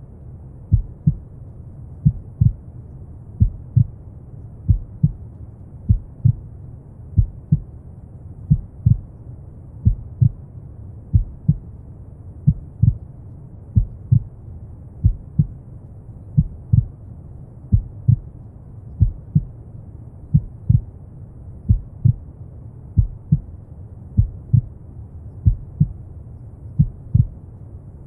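Slow, steady heartbeat, each beat a soft double thump (lub-dub) coming about once every second and a quarter, over continuous low brown noise.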